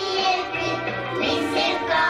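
Young children singing into a microphone, with instrumental music accompanying them.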